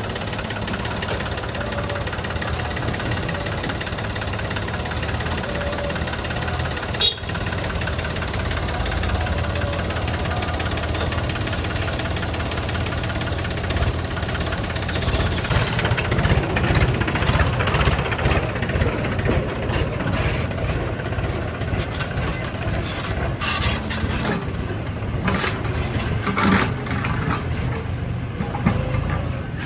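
Heavy diesel engine running steadily, with a single sharp knock about seven seconds in and irregular clanks and clatter from about halfway on.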